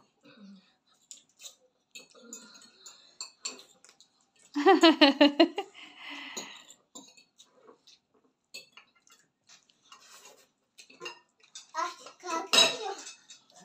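Forks clinking and scraping against bowls in quick, scattered strokes as two children eat pasta as fast as they can. A high voice calls out loudly about four and a half seconds in, and again briefly near the end.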